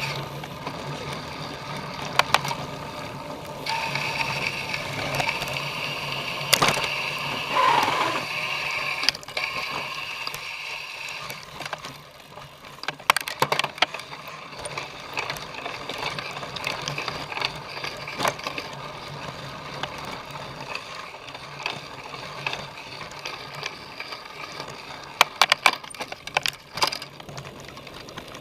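Cyclocross bike ridden hard over a rough course: the bike rattles and clatters, with irregular sharp knocks from bumps. A high steady whine sounds from about four seconds in for several seconds.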